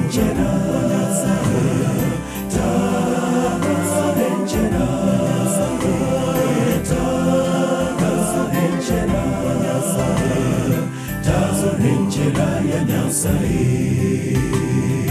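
Men's choir singing a gospel song, many male voices together, loud and steady with short breaks between phrases.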